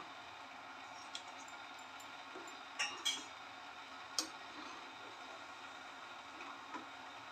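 A steel ladle stirring thick milky kheer in a metal pan, clinking lightly against the pan four or five times.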